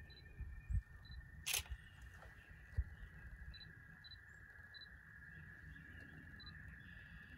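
Digital SLR camera in use for photographs: about half a dozen short high autofocus beeps, a shutter click about a second and a half in, and a few dull handling bumps, over a faint steady high whine.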